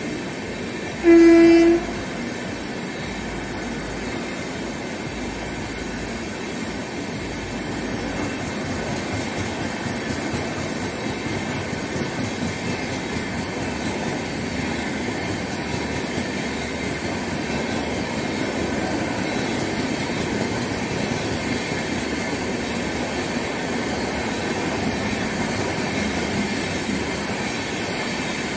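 Passenger train running through a station at speed: one short horn blast about a second in, then the steady noise of the coaches rolling past on the rails.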